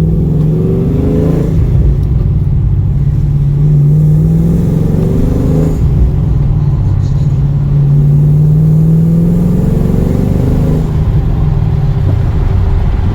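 Chevrolet Camaro SS's 6.2-litre V8 and exhaust accelerating through the gears with the windows down: the engine note climbs three times, dropping sharply at each upshift about a second and a half in, near six seconds and near eleven seconds, then settles into a steady cruise.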